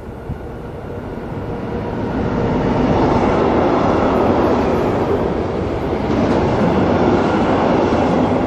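Intermodal freight train of wagons carrying road semi-trailers, hauled by an electric locomotive, running past on the near track. The rumble of wheels on rail grows louder over the first three seconds as the train draws close, then holds steady as the wagons roll by.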